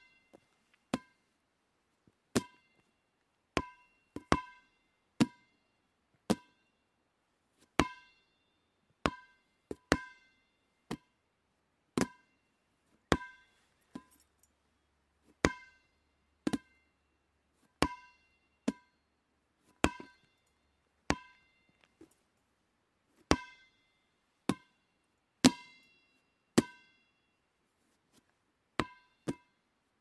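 A ball bouncing on the ground, one bounce at a time, about once a second at an uneven pace, sometimes two in quick succession. Each bounce is a sharp hit with a short ringing ping.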